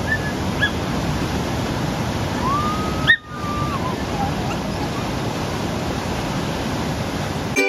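Ocean surf breaking and washing over rocks, a steady rush of water that briefly cuts out just after three seconds. A faint, drawn-out high voice cry rises over the surf about three seconds in.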